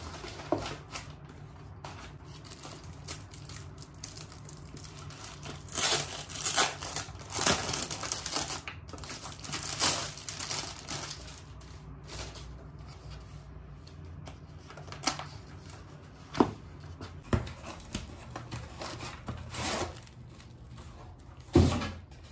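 Plastic packaging and nylon tote bags rustling and crinkling as they are handled and unpacked, in irregular bursts, with two sharp knocks in the second half.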